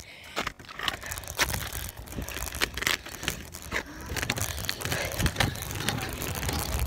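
Scooter wheels rolling over snowy pavement: a rough rumble with many sharp clicks and knocks, growing louder and steadier about halfway through.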